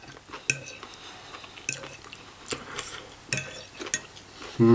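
Metal cutlery clinking and scraping against a plate about five times, spaced out, as food is scooped up.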